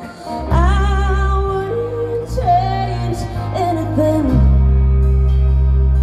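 Live country band playing through a PA, heard from within the crowd: heavy steady bass and drums with guitar, and a melody line over them for the first four seconds or so.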